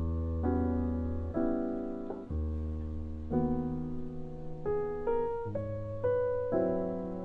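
Background piano music: a gentle melody over held chords that change about once a second.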